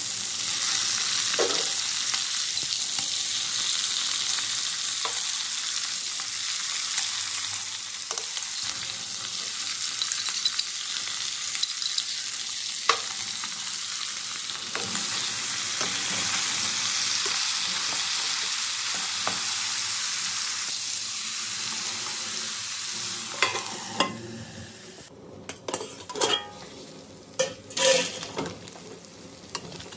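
Pork pieces sizzling in hot oil in a metal kadai, stirred and scraped with a steel ladle that knocks against the pan now and then. Near the end the sizzle grows fainter and the ladle knocks stand out.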